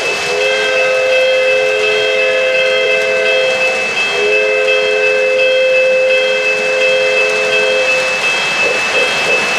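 Model locomotive's electronic sound-system whistle blowing two long blasts, over the steady running noise of an O-gauge train on the track.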